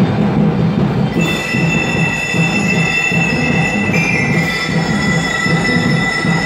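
Drum and lyre band playing: drums beat a steady repeating pattern while bell lyres ring high, held notes that come in about a second in and change to a new chord about four seconds in.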